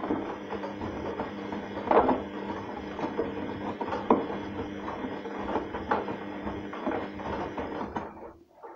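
Arçelik 3340 SJ front-loading washing machine in its wash cycle: the drum turns with a steady motor hum while soapy laundry tumbles inside, giving irregular thuds every second or two. The sound cuts off near the end.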